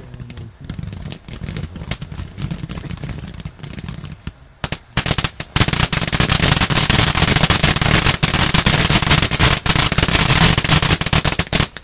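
Ground fountain firework sputtering with scattered pops. About five seconds in it breaks into a loud, dense crackle that cuts off suddenly near the end.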